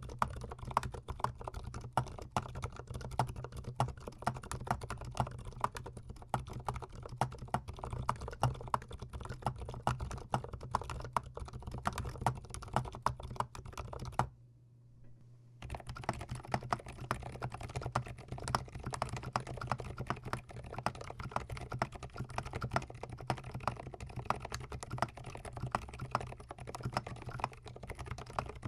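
Fast typing on a GMMK Pro mechanical keyboard, with a dense run of keystroke clacks. The typing breaks off for about a second and a half halfway through, then resumes.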